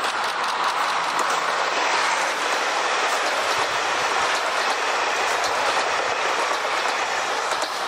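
KiHa 261 series diesel express train passing close by at speed: a steady rush of wheels on rail and running gear as the cars go past.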